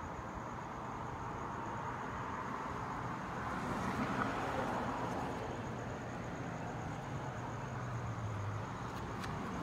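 Outdoor night ambience: a steady hum of traffic with a vehicle passing, loudest about four seconds in, and a faint high insect trill behind it.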